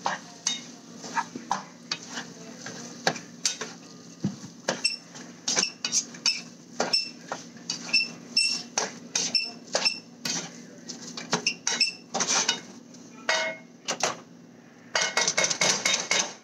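Kitchen dishes and utensils clinking and knocking, a steady run of sharp clinks, some ringing briefly, thickening into a quick rattle of strikes near the end, over a low steady hum.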